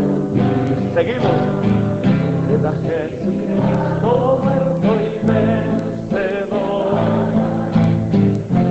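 A Spanish-language worship song: singing over steady instrumental accompaniment, with no break.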